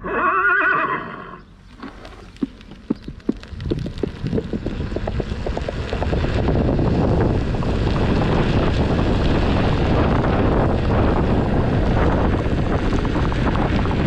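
Electric unicycle's AVAS "Horse" sound effect from the EUC World app: a horse whinny, then hoof clip-clops that start as separate steps and quicken into a dense, steady gallop as the wheel picks up speed.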